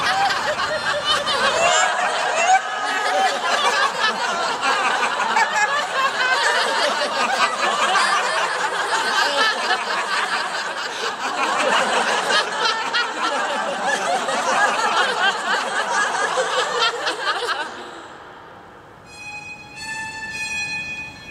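A large group of people laughing loudly together, many voices at once, which stops abruptly near the end. A few held musical notes start up after it.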